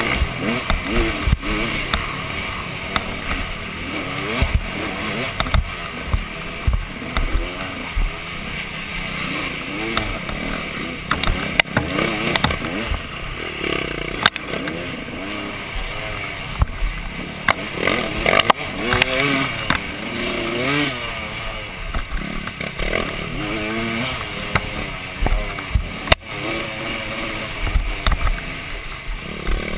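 Dirt bike engine revving up and down with the throttle as it rides, its pitch climbing and falling every second or two, with frequent knocks and rattles as the bike bounces over rough ground.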